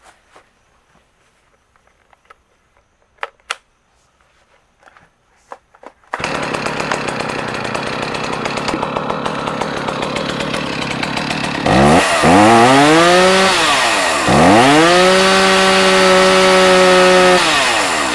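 Stihl MS290 chainsaw's two-stroke engine: after a few faint clicks it starts about six seconds in and idles, then is revved up to full throttle twice, dipping briefly between, the second time held for a few seconds before dropping back to idle near the end.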